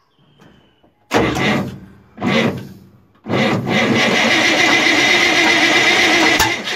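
Starter motor cranking an old FNM truck's diesel engine: two short bursts, then a longer sustained crank from about three seconds in. The starter is struggling to turn the engine over.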